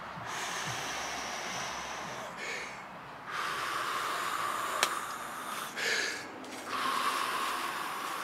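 Laboured breathing of a man with COPD, close to the microphone: three long, noisy breaths of about two seconds each, with short catches of breath between them. A single sharp click comes about halfway through.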